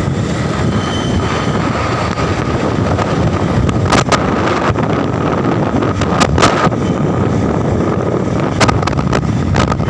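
Wind rushing over the microphone of a moving motorcycle, with its engine running underneath. A few short thumps break in about four, six and nine seconds in.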